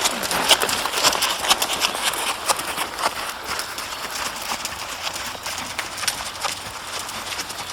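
Hoofbeats of Rocky Mountain Horses being ridden: a quick, uneven run of hoof strikes.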